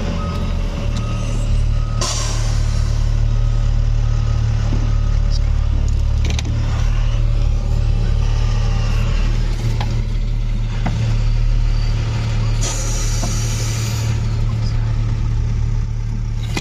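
Truck engine idling steadily, heard from the cab footwell while the air-assisted clutch pedal is worked. A short burst of air hiss comes about 13 seconds in, the clutch booster releasing air.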